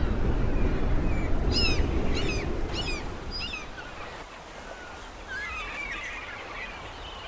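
Birds on a lake calling: four short, high calls that each slide downward, about half a second apart, then a run of quicker chattering calls in the second half. A low rumble underneath fades out by about halfway.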